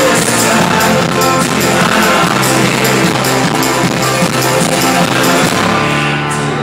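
Live folk-rock band playing amplified on stage: strummed guitar over a steady beat. About three-quarters of the way through, the beat stops and a final chord is held.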